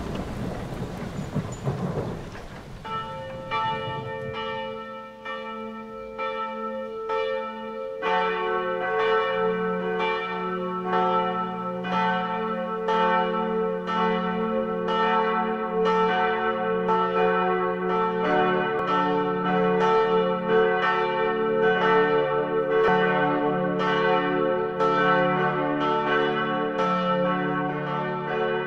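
Thunder and rain for the first few seconds, then bells ringing in a steady run of repeated strikes, with more bells and a louder, fuller peal joining about eight seconds in.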